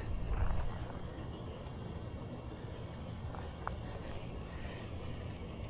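Crickets chirring in a steady, unbroken high trill over a low background rumble.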